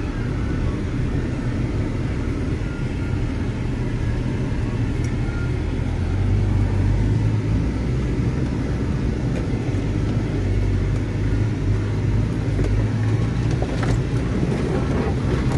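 Off-road SUV engine running under load as it pushes through dense brush, heard from inside the cabin, its low rumble swelling partway through. Branches and leaves brush against the body and windshield, with a few sharp snaps and scrapes near the end.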